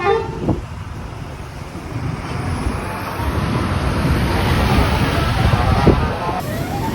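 Street traffic, with a bus's engine and tyre noise growing steadily louder as it draws close. Near the end a tone sliding up then down cuts in.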